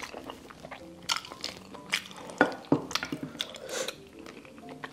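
Close-up wet eating sounds: sticky mouth clicks and chewing on a mouthful of soft, gelatinous stewed pork foot, with wet sounds of fingers lifting another piece from the stew near the end.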